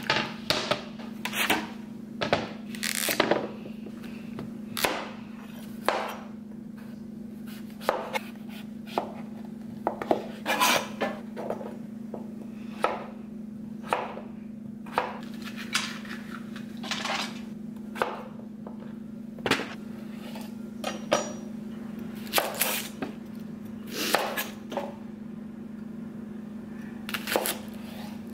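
Kitchen knife chopping butternut squash on a plastic cutting board: irregular sharp knocks of the blade striking the board, about one every second, over a steady low hum.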